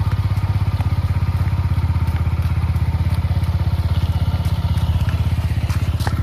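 Motorcycle engine running steadily at low revs, its exhaust pulsing rapidly and evenly with no revving.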